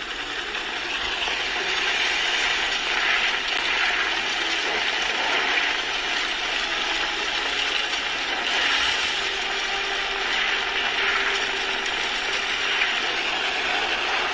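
Continuous rapid mechanical clicking and rattling that swells in over the first two seconds and then holds steady.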